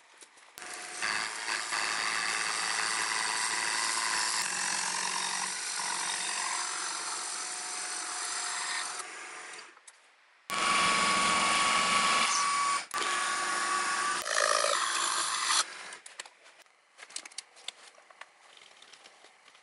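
Milling machine running a slitting saw, a steady mechanical whir with a mix of fixed tones, for about nine seconds. It stops, starts again a moment later with a steady whine for about five seconds, and stops. Faint clicks follow near the end.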